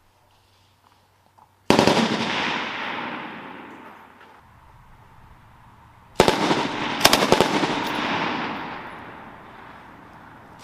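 Machine-gun fire: a short burst about two seconds in, then a burst of several shots about six seconds in, each followed by a long echo that fades over two to three seconds.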